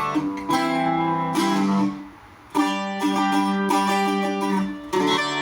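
Handmade Irish bouzouki with a pitch pine body from reclaimed wood, its doubled steel strings picked and strummed in a simple tune. The playing dips to a brief pause about two seconds in, then carries on with ringing chords, heard through a tablet's microphone.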